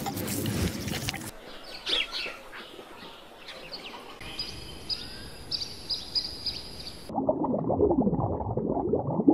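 Outdoor ambience with small bird chirps. About seven seconds in it gives way abruptly to a louder, muffled sound with sliding pitches.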